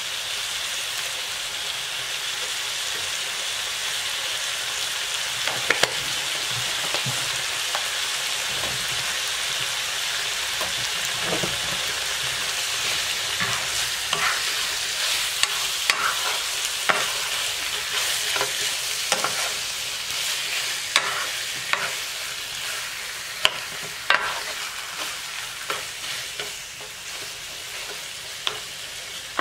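Pork chops sizzling in a hot nonstick frying pan with onion and garlic. A wooden spatula scrapes and knocks against the pan at irregular intervals as the chops are stirred and turned.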